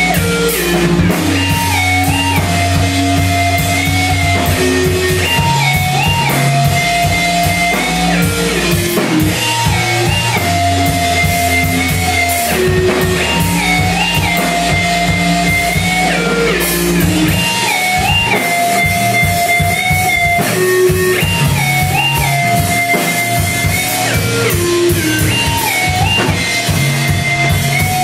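Live instrumental band music: a drum kit played steadily under a melodic riff that repeats about every four seconds, over a stepping bass line, with no singing.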